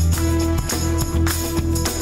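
Background instrumental music with a steady beat, sustained bass and held notes under regular percussion hits.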